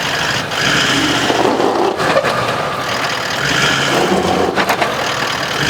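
4WD engine running and revving under load as the vehicle reverses, trying to back out of being stuck. A short cluster of clicks about four and a half seconds in.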